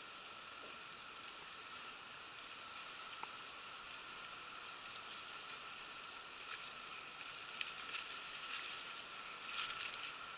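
Steady outdoor woodland background hiss, with footsteps rustling and crunching through dry leaf litter and palmetto fronds, growing louder near the end.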